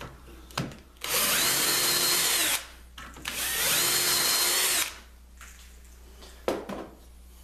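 Handheld power drill boring a dowel hole through a guide bushing of a Dowelmax doweling jig into a wooden board. It runs in two spells of about a second and a half each, the motor whine rising to speed and falling away at the end of each. Short handling clicks come before the drilling, and a sharp knock near the end as the drill comes out of the jig.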